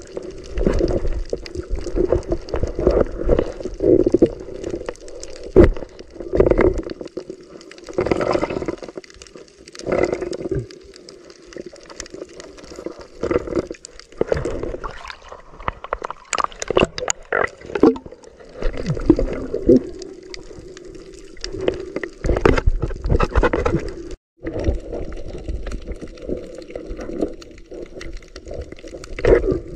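Muffled, uneven water sloshing and gurgling heard through an underwater camera housing, with scattered knocks as the diver moves. The sound cuts out for a moment about four-fifths of the way through.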